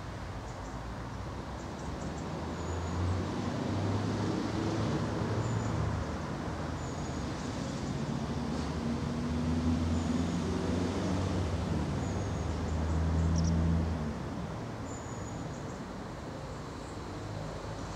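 A motor vehicle's engine running close by: a low hum that grows louder after a couple of seconds, shifts in pitch, and eases off about fourteen seconds in. Short, faint, high chirps come every couple of seconds over it.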